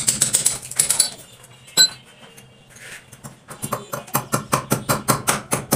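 Light hammer taps on the fittings of a plastic bathroom door frame as it is fixed into the doorway. There is scraping at first and a single ringing metal clink about two seconds in, then a fast, even run of sharp taps, about five a second.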